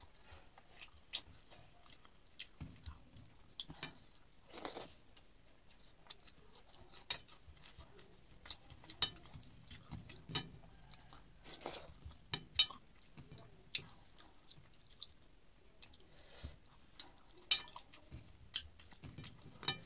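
A person chewing mouthfuls of rice and fish curry close to the microphone, with many irregular sharp clicks and smacks.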